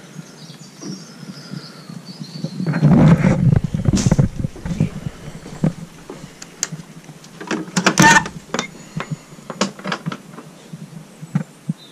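Handling noise, footsteps, clicks and knocks from a person moving about and opening a shed door, with a loud rustle about three seconds in and a sharp scraping rattle around eight seconds.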